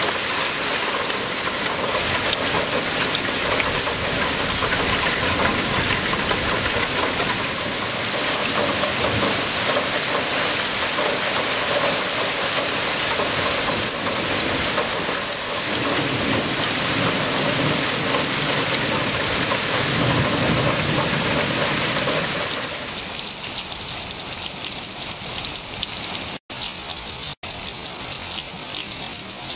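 Steady rain falling in a thunderstorm, with a low rumble of thunder rolling on for several seconds past the middle. Near the end the rain turns quieter and there are two very short gaps in the sound.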